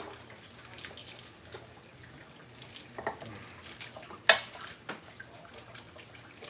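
Scattered light kitchen clinks and knocks of utensils and dishes, with one sharp clack about four seconds in, over a low steady hum.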